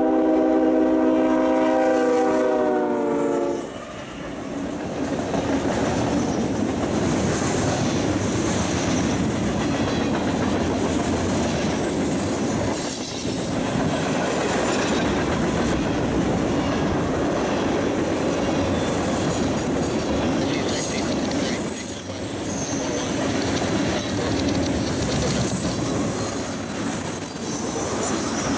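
Lead locomotive of a five-unit CSX diesel freight train sounding its multi-note air horn for about three seconds as it approaches, then the train passing close at speed: a steady loud rumble and rattle of wheels on the rails, with high-pitched wheel squeal rising over it in the second half.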